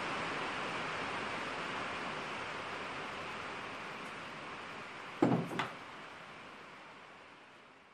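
An engine cylinder head set down on a workbench: two knocks about half a second apart. Under them a steady hiss slowly fades.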